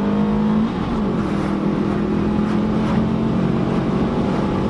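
Car engine, heard from inside the cabin, running hard at high revs. Its pitch dips briefly about a second in, then climbs back and holds a steady high note.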